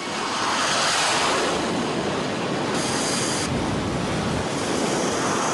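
F/A-18 Hornet jet engines running at high power on an aircraft carrier's steam catapult: a loud, steady rushing noise, with a brief higher hiss about three seconds in.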